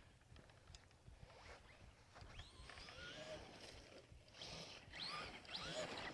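Faint, distant whine of the Traxxas Rustler RC truck's electric motor, rising and falling in pitch as the throttle is worked, twice in the second half.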